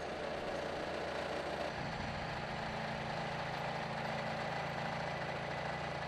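Manitou telehandler's diesel engine running steadily at idle, its low hum growing a little stronger about two seconds in.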